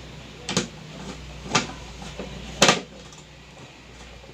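Hard plastic parts of a mixer grinder knocking as they are handled and fitted: three separate knocks about a second apart, the third the loudest.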